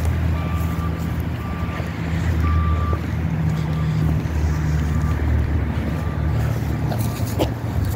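A steady low rumble, like an engine or wind on the microphone, with a high electronic beep repeating about once a second that grows faint after about three seconds.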